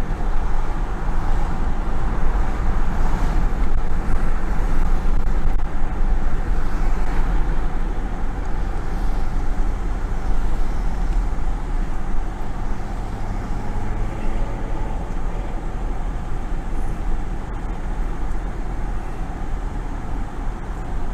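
A vehicle driving, with steady road and engine noise and a constant low rumble.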